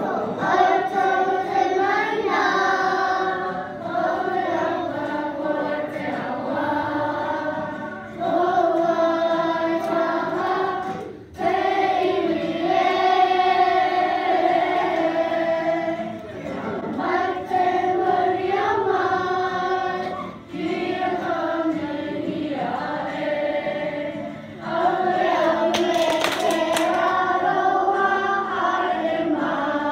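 A class of young children singing a Māori waiata together as a choir, in sung phrases with brief breaks between them.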